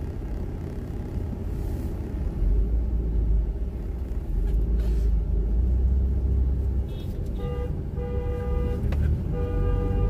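Low road rumble inside a moving car. About seven seconds in, another car's horn sounds several short toots followed by one long blast.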